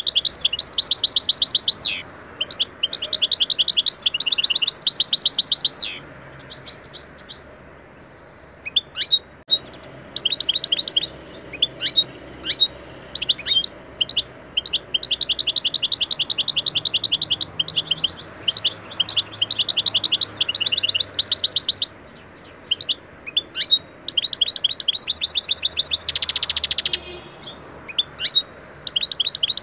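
European goldfinch singing: fast twittering phrases of quick repeated notes, broken by short pauses, with a dense buzzy trill late on.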